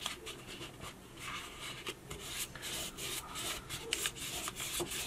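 Fingers pressing and rubbing a cardstock piece into place, working it around the edge: a run of soft paper rubbing with many small crackles and taps.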